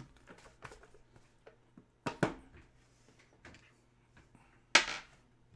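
Hands handling a trading-card box and its packaging: scattered light clicks and taps, two sharper knocks about two seconds in, and a short rustle of card or wrapper near the end.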